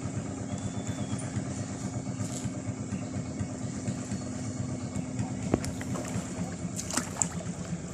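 A small engine running steadily, a rapid low put-put with a hum in it.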